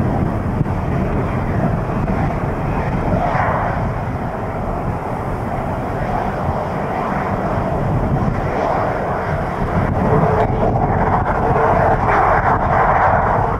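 Boeing 737-300's CFM56-3 turbofan engines running at taxi power as the jet rolls slowly by, a steady jet rush with a faint whine coming in about ten seconds in. Gusty wind rumbles on the microphone underneath.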